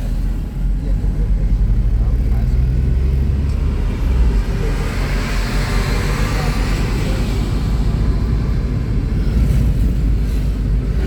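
Motor vehicle traffic: a steady low rumble, with a vehicle's noise swelling and fading away about four to seven seconds in.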